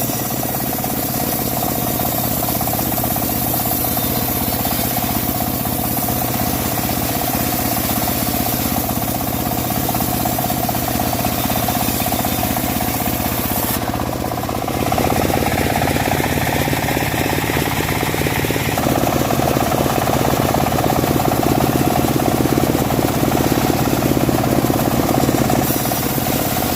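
Homemade bandsaw mill running steadily while sawing dry teak, a continuous machine drone. About fourteen seconds in it dips briefly, then grows louder, with a higher hiss for a few seconds.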